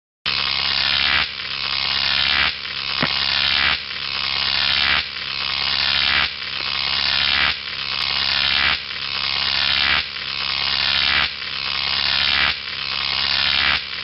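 Electricity sound effect: a harsh electric buzz and crackle over a low hum. It starts abruptly just after the start, then swells and dips in an even pulse about every second and a quarter.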